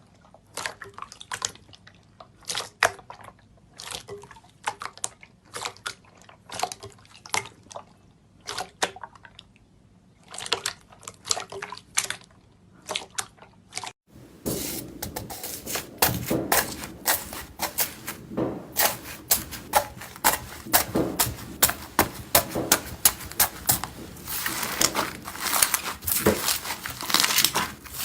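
Slime being squeezed and pressed by hand, making wet, sticky clicks and pops. The pops are sparse at first, then about halfway through a denser, louder stretch of crackling clicks begins.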